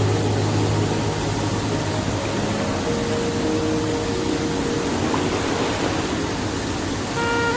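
Steady wash of sea waves, with faint long held notes of soft background music; a higher note comes in near the end.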